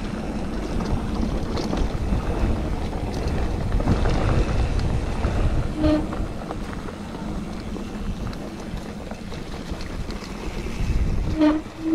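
Wind rushing over an action camera's microphone while a mountain bike rolls along a dirt singletrack, with steady tyre and frame rumble. A brief squeal cuts through about six seconds in and again near the end.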